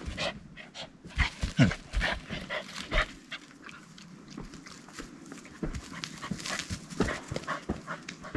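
Small dog panting and sniffing as it noses through moss and forest litter, with scattered short rustles and steps. The sounds are irregular and busiest between about one and three seconds in.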